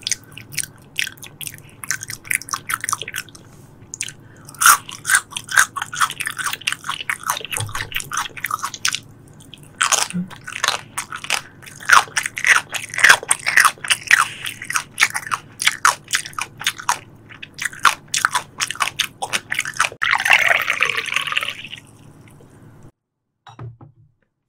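Close-miked chewing of tuna sashimi: a dense run of wet mouth clicks and smacks. About 20 s in, a louder rushing sound lasts about two seconds before it all goes briefly quiet.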